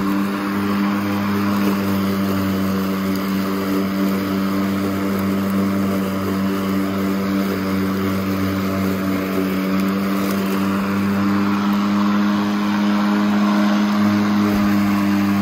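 Worx Nitro 40V cordless 20-inch push lawn mower running steadily while cutting grass: an even electric motor and blade hum with a rushing hiss above it.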